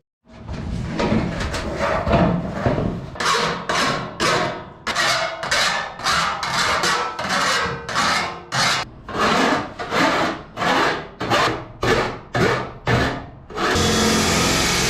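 Hand file scraping the edge of an aluminum lightening hole to deburr it, in rhythmic strokes about two a second. Near the end a small power tool starts and runs steadily.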